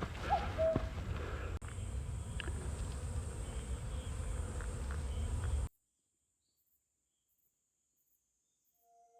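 Outdoor field ambience: a steady, high insect drone over a low rumble, with a short pitched call near the start. The sound cuts off suddenly a little under six seconds in.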